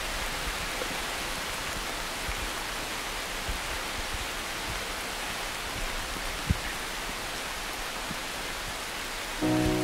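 Steady rain-like rushing hiss from the performance's recorded forest soundscape, with a few faint ticks scattered through it. Music comes back in near the end.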